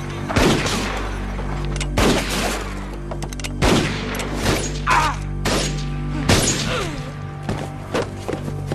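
Gunfight of revolver shots: about eight sharp shots at uneven intervals, over a held film-score chord.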